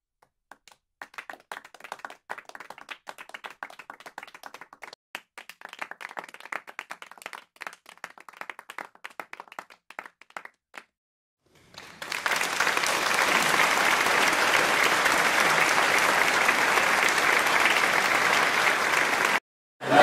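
Audience applause: scattered, sparse clapping by a few people for about ten seconds, then after a short pause full, steady applause that cuts off abruptly near the end.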